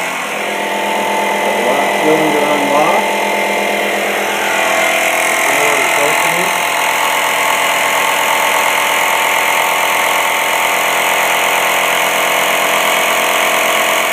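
Home-built pneumatic chicken-coop door opener running as the up solenoid sends compressed air to the cylinder and the door rises slowly: a loud, steady mechanical running sound with hiss.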